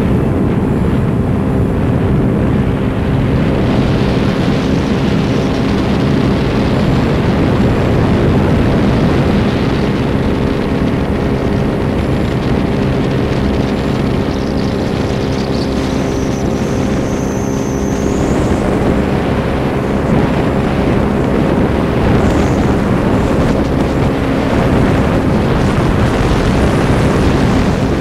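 Paramotor engine and propeller running steadily in flight: a constant, even drone with wind noise on the microphone over it.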